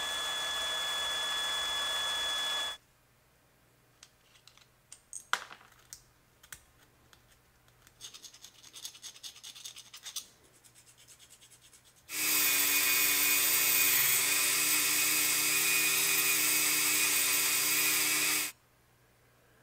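Handheld rotary tool drilling out a rivet in a diecast metal truck cab, running steadily for about three seconds. Light clicks and scrapes from handling small metal parts follow. Then a rotary tool spins a cloth buffing wheel against a small die-cast air-horn piece to polish it, running steadily for about six seconds; this is the loudest sound.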